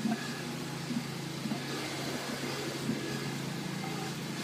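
A motor running steadily with a constant low hum, over a hiss of outdoor machinery noise.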